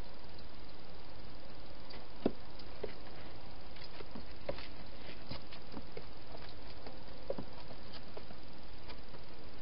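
Wild hedgehog feeding at bowls inside a plastic feeding box: scattered small clicks and crunches, the loudest about two seconds in, over a steady hiss.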